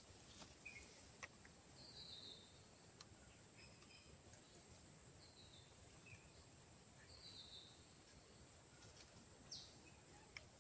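Near silence: faint outdoor ambience with a steady high hiss and a few short, high bird chirps scattered through it.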